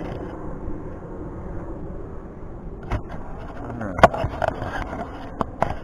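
Steady low outdoor background rumble, with a few sharp clicks and knocks in the second half, the loudest about four seconds in.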